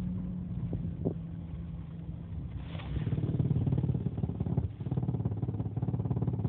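2001 Jeep Cherokee XJ engine idling in drive, making the noise that the owner is chasing: about halfway through, a louder, rapidly pulsing drone comes in over the steady idle. Two light clicks sound about a second in.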